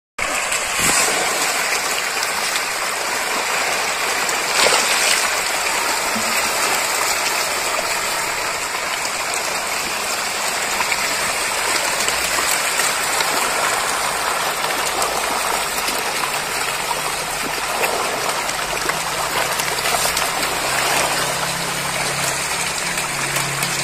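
A mass of pangasius (patin) catfish splashing and thrashing at the water surface in a feeding frenzy over floating feed, a steady churning, gushing water noise.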